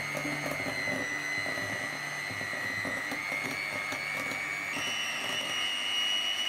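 Electric hand mixer running, its beaters churning thick chocolate cake batter in a glass bowl. The motor gives a steady whine that steps up in pitch near the end as the speed is raised.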